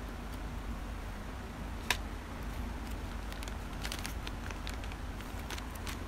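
Small plastic and metal RC helicopter parts handled on a tabletop: one sharp click about two seconds in, then a run of light clicks and taps, over a steady low hum.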